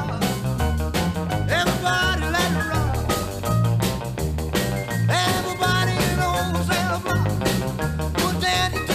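Upbeat rock and roll music with a steady beat and a bass line that steps from note to note, carried by instruments with no words sung.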